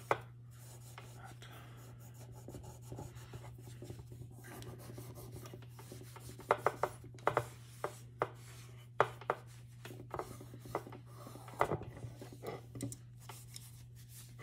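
Hands rubbing and handling metal pistol parts at a workbench, with a scatter of sharp clicks and taps from about halfway through, over a steady low hum.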